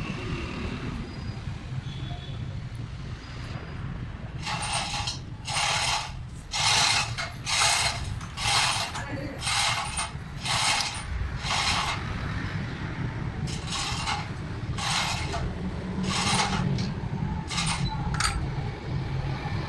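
A hand tool worked in quick repeated strokes on metal engine parts: about sixteen short rasping bursts at roughly one a second, with a pause near the middle, over a steady low rumble.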